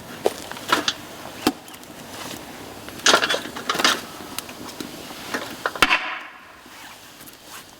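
Bamboo cracking and snapping: a handful of sharp, irregular cracks, the loudest bunched around the middle.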